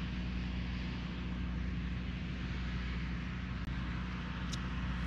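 Steady low hum of a running engine or motor under an even rushing noise, with two faint ticks near the end.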